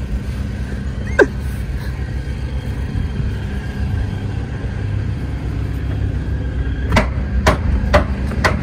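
An engine running steadily with a low rumble, with four sharp knocks about half a second apart near the end.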